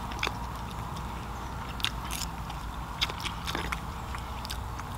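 Someone chewing and biting food, with a few sharp crunching clicks spread through.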